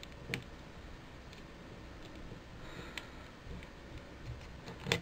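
A few small clicks of a screwdriver prying at the plastic arm and heater plate holder of a GHD Eclipse hair straightener: one sharp click shortly after the start, a few fainter ones, and the loudest click just before the end.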